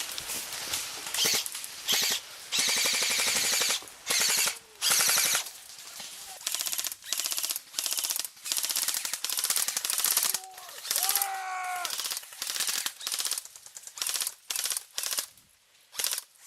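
Airsoft guns firing rapid full-auto bursts, one after another, some short and some over a second long, with a brief shout partway through.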